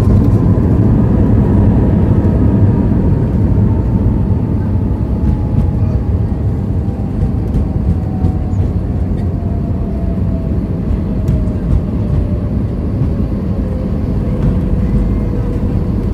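Airliner cabin noise during the landing roll: a loud, steady rumble of the wheels on the runway and the engines, with an engine whine falling slowly in pitch as the engines spool down and the aircraft slows.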